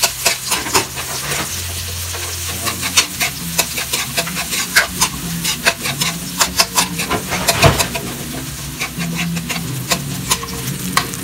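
Chopped onions sizzling in hot oil in a metal wok, stirred with a metal spoon that scrapes and clicks against the pan again and again, with one louder knock a little past halfway.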